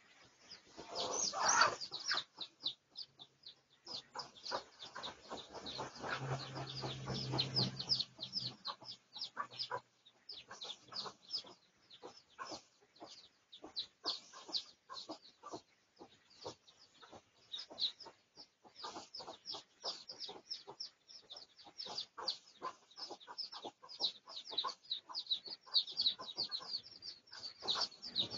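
Red junglefowl calling: a steady stream of short, high chirps mixed with clucks, with one louder call about a second and a half in.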